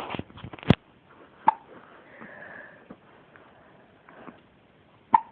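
A baby hiccuping: short, abrupt hics spaced seconds apart, a sharp one under a second in, another about a second later, and a third near the end.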